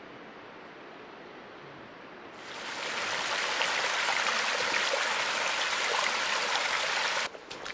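Flowing water of a mountain stream, a steady rush that swells to a much louder rush about two and a half seconds in and cuts off abruptly near the end.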